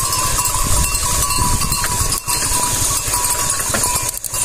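Bells worn by a flock of sheep clinking, over a steady low rumble.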